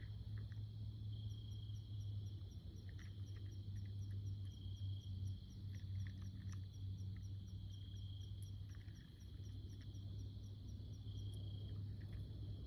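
Insects, crickets among them, chirping in a steady chorus: a fast high chirp about four times a second over a buzzing drone that swells every couple of seconds. Under it runs a steady low rumble, with a few faint clicks.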